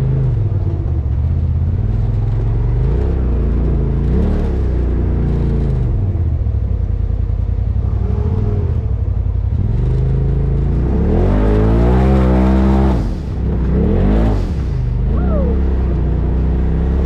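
Polaris RZR side-by-side's engine running under load on a rough trail climb, its pitch rising as it revs harder about two-thirds of the way through, then dropping briefly and revving up once more.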